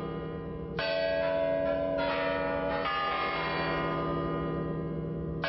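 Kremlin chimes of the Spasskaya Tower clock ringing out midnight. Bell strokes come about a second in, near the middle and right at the end, and each rings on under the next.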